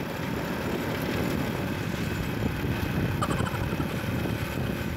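Small motorcycle running along at riding speed, its engine mixed with wind rushing over the microphone in a steady low rumble.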